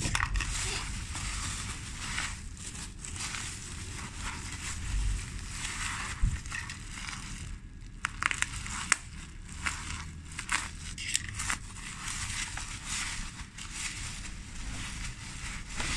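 Plastic bubble wrap crinkling and crackling, with many sharp clicks, as it is handled, cut with a utility knife and pulled away by hand.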